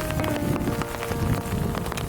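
Heavy rain falling, a dense patter of drops hitting surfaces, with soft background music of long held notes over it.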